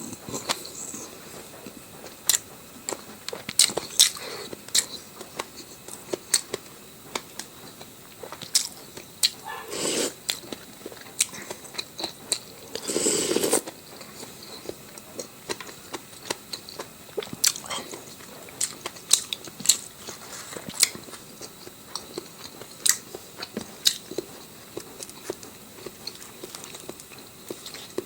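A person eating close to the microphone: sharp crunching bites and chewing sounds at an irregular pace, with two longer noisy stretches about ten and thirteen seconds in.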